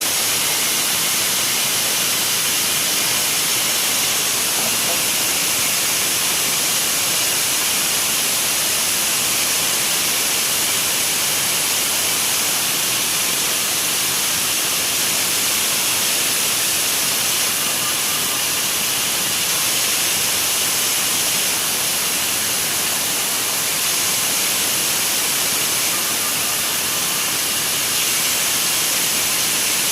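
A steady, even hiss, strongest in the high range. It holds at one level without any breaks, knocks or changes in pitch.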